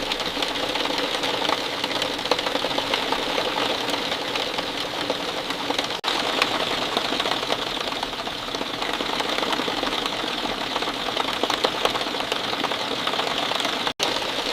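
Steady rain: a dense, even patter of many drops ticking close by. The sound briefly cuts out for an instant about six seconds in and again near the end.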